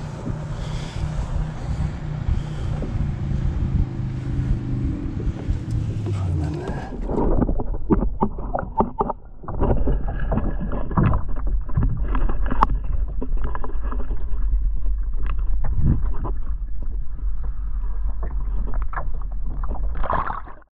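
Wind and water noise over a kayak on open water for about the first seven seconds. Then a muffled underwater sound: water moving past a submerged camera, with a deep rumble and many short knocks against its housing.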